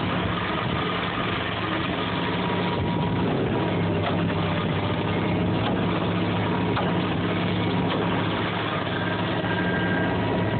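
SP-40 Sonic side-grip vibratory pile hammer running steadily while extracting a pipe pile: an even mechanical drone with a low, steady hum under it.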